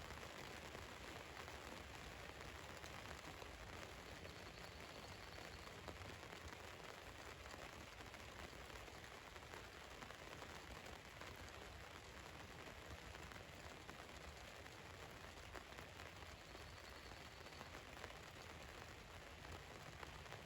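Faint, steady rain falling on a van's roof and body, a continuous patter of fine drops.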